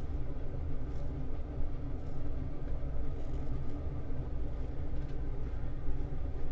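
Safety razor drawn across lathered stubble in a few short strokes, heard faintly over a steady low rumble.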